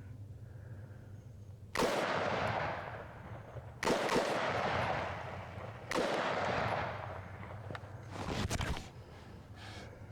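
Three semi-automatic rifle shots about two seconds apart, each followed by a long rolling echo, then a weaker fourth report near the end.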